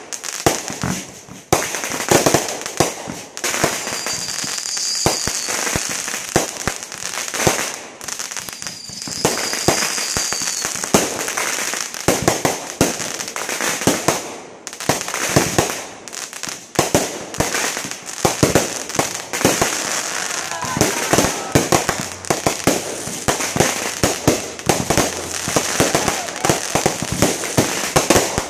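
Fireworks display: a continuous, dense barrage of bangs and crackling from aerial shells bursting and rockets going up.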